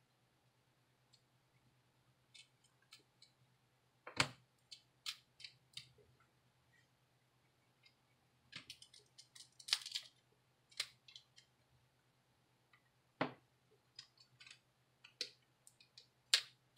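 Irregular sharp clicks and short scrapes of a plastic opening tool levering along the edge of an LG K120 phone's screen, prying the display loose from its frame.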